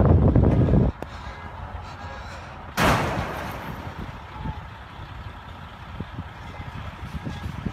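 Heavy rumble of trucks and wind that cuts off suddenly about a second in, then a sudden loud crash just under three seconds in that fades over a couple of seconds: vehicles colliding in a multi-vehicle highway pileup. A lower rumble and a few small knocks follow.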